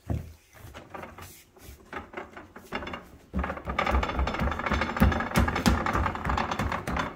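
Wooden stair railing with wrought-iron balusters rattling as it is shaken by hand: a fast, loud clatter of loose parts starting about three seconds in and stopping just before the end.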